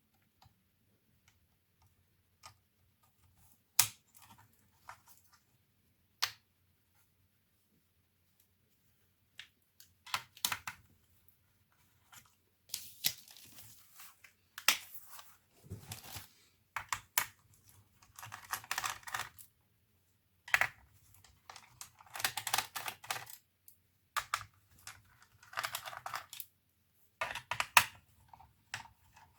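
Hands working on the plastic case and parts of an HP 630 laptop: a few scattered sharp clicks and taps at first, then from about ten seconds in repeated short bursts of plastic rattling and scraping.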